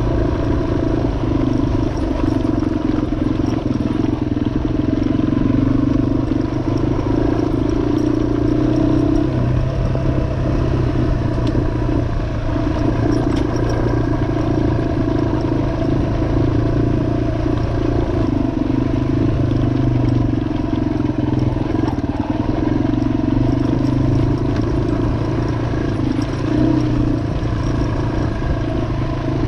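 2003 Yamaha XT225's single-cylinder four-stroke engine running under way while riding. The note holds steady, easing off a couple of times.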